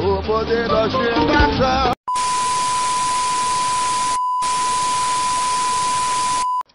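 Music with a beat, cut off abruptly about two seconds in, followed by a TV colour-bar test-tone effect: a steady high beep over loud static hiss, broken once by a short gap past the middle and cut off suddenly near the end.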